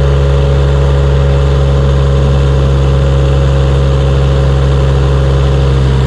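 Kubota D722 three-cylinder diesel of a 1.2-ton mini excavator running steadily at full throttle while the boom cylinder pulls against an anchored crane scale, loading the hydraulics.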